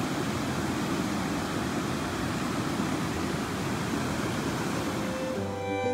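Steady rush of creek water flowing over rock. Music comes in near the end.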